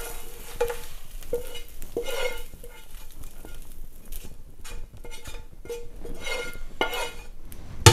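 Silicone spatula scraping and knocking against a non-stick frying pan as stir-fried noodles are pushed out of it, the pan giving a short ring with several of the strokes. A sharp knock comes right at the end.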